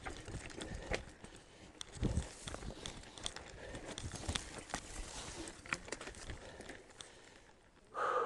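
Mountain bike rolling down a rocky, loose-stone trail: an irregular clatter of knocks and rattles as the tyres hit stones and the bike shakes over them. Near the end comes a brief pitched sound, louder than the clatter.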